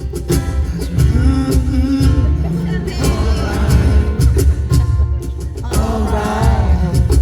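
Live rock band playing a song with a male lead vocal, drums, bass and guitar, heard loud through the venue's PA.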